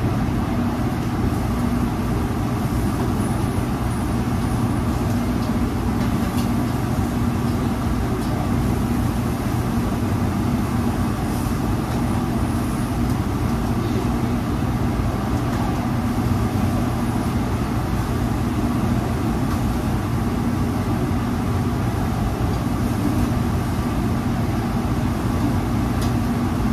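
Steady drone of a commercial kitchen exhaust hood fan running, with a low, even hum and no change in level; a few faint clicks sit on top.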